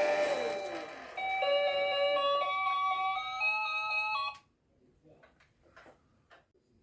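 Toy vacuum cleaner's sound chip playing an electronic beeping tune: a falling glide, then a short stepped melody that cuts off suddenly about four seconds in. A few faint clicks follow.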